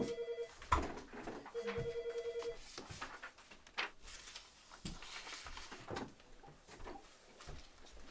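Telephone ringing: the tail of one ring, then one more ring of about a second, each a rapid pulsing two-tone trill. Scattered clicks and rustles follow.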